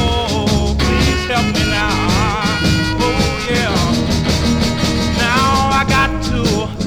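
Instrumental break of a 1960s R&B record: a lead instrument plays a wavering melody over a steady bass and drum backing, with no singing.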